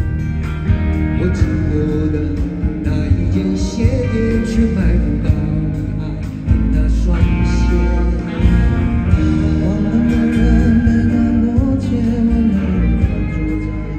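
Live band performance of a Mandopop rock ballad: acoustic and electric guitars with male vocals.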